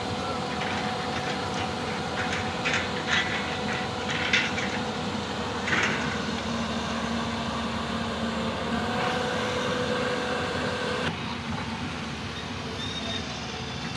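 Hyundai 220-9 crawler excavator's diesel engine running steadily with hydraulic whine, with several short clanks in the first half.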